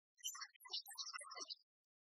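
Faint, choppy music heard as short broken-up bursts. It starts about a fifth of a second in and cuts out about a second and a half in, then falls silent.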